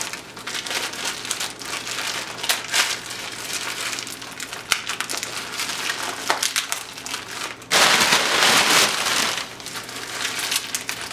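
Paper packing crinkling and rustling as things are rummaged and lifted out of a shipping box, with a louder stretch of crumpling about eight seconds in.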